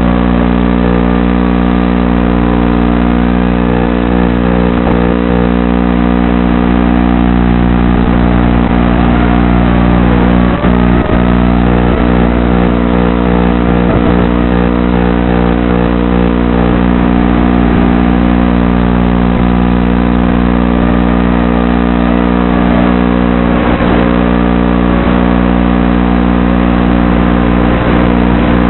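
Wizard X220 racing quadcopter's brushless motors and propellers whirring steadily in flight, the pitch wavering slightly as the throttle shifts.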